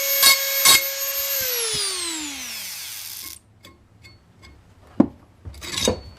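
Dremel 4000 rotary tool whining at full speed while its bit grinds the edge of a steel garden hoe in short strokes, about three a second. It is switched off about a second in, and the whine falls in pitch as it spins down over two seconds. A single knock follows near the end.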